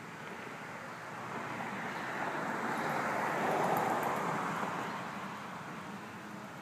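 A passing vehicle on the road: an even rushing noise that builds over a couple of seconds, peaks in the middle and fades away.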